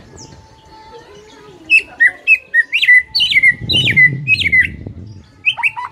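White-rumped shama (murai batu) singing loudly: after a quieter start, a fast run of sharp whistled notes begins about two seconds in, each sweeping up and dropping back, about three a second, with more notes near the end. A low rumble sounds under the song about halfway through.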